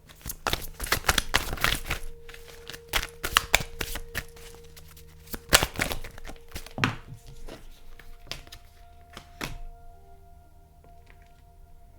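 A deck of tarot cards shuffled by hand in several bursts, stopping about three-quarters of the way through. Quiet background music with held tones plays underneath.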